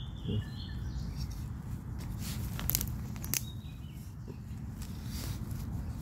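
Rustling of grass and leaf litter as a hand pulls termite mushrooms out of the soil, with a few sharp crackles between about two and three and a half seconds in.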